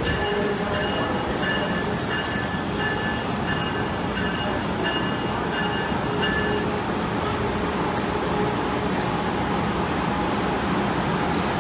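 Amtrak Acela Express train's bell ringing about twice a second, stopping about six and a half seconds in. Under it is the steady rumble of the trainset pulling slowly into the station.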